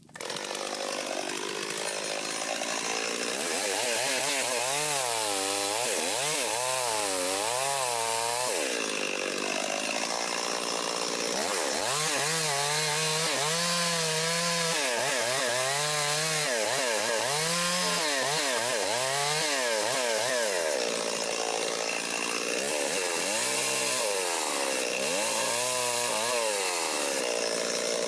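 Chainsaw cutting a scarf into a tree. The engine starts right away and runs hard throughout, its pitch dipping and rising again and again as the chain bites into the wood. It stops near the end.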